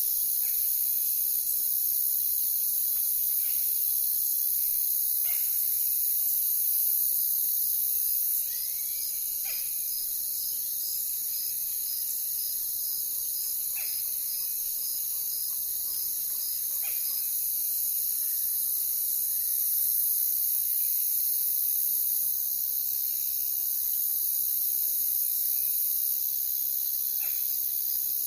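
Night-time insect chorus of crickets, a dense steady high-pitched trilling, with one insect chirping in even pulses about twice a second for several seconds. Faint low owl hoots repeat about every two seconds, with a few short, sharp calls now and then.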